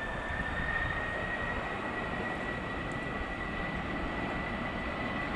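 Boeing 737-800's CFM56 jet engines at high thrust as it starts down the runway: a steady roar with a high fan whine that creeps up slightly in pitch and then holds.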